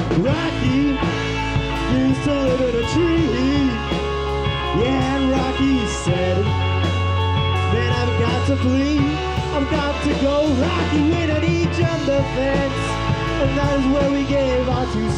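Indie rock band playing live: distorted electric guitars, electric bass and drum kit, with a male lead voice singing into the microphone.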